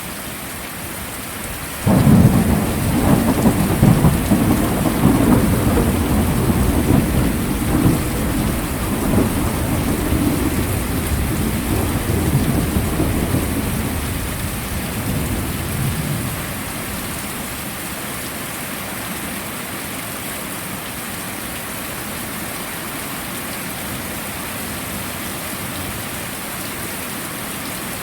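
Heavy rain falling steadily, with a thunderclap breaking about two seconds in and rumbling on for over ten seconds before fading back to the rain alone.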